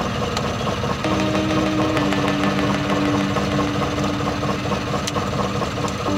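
Truck engine idling steadily, heard from inside the cab.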